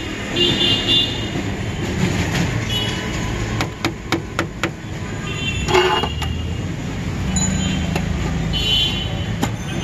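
Busy street traffic: a steady low rumble of engines, with short vehicle-horn toots several times. A quick run of sharp clicks about four seconds in.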